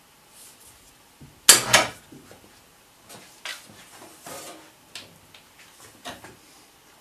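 Metal clanking and knocking as a portable generator is lowered on an overhead chain hoist and steadied onto a plywood work table: a loud double clank about a second and a half in, then lighter scattered knocks and rattles.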